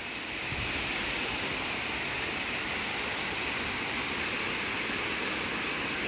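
Steady rushing of water from the Banyumala Twin Falls waterfall.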